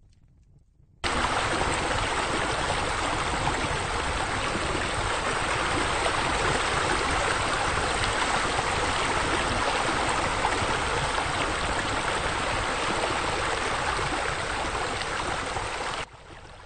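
Steady rush of running, splashing water from pool fountain jets, starting suddenly about a second in and cutting off sharply near the end.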